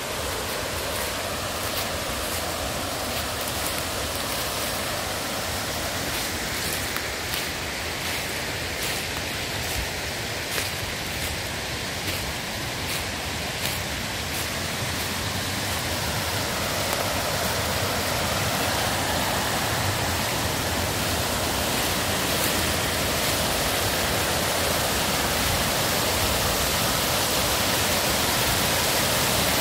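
Rushing water of a waterfall, many small cascades falling over rocks in a steady, even rush that grows a little louder in the second half.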